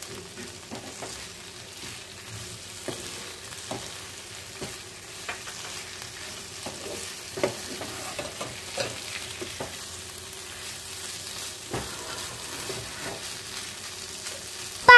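Rugda mushrooms frying in oil with onions and masala, sizzling as they are stirred and roasted, with irregular scrapes and taps of a spatula against the pan. A faint steady hum runs underneath.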